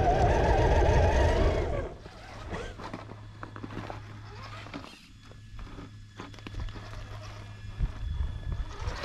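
Traxxas TRX-4 Sport RC crawler's electric motor and geared drivetrain whining loudly close up, the pitch wavering with the throttle, for about the first two seconds. Then it is much quieter: a faint steady hum with scattered clicks and crunches as the tyres climb over rock and dirt.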